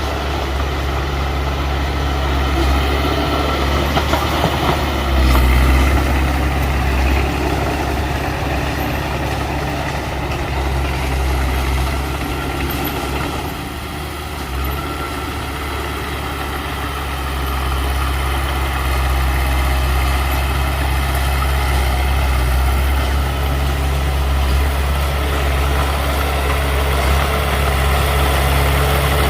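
Heavy diesel engine running steadily with a low drone, easing off about halfway through and building up again a few seconds later.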